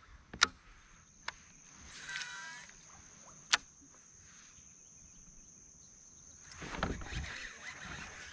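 Quiet outdoor ambience with a steady high-pitched insect buzz, broken by three sharp knocks and a short rustle of movement near the end.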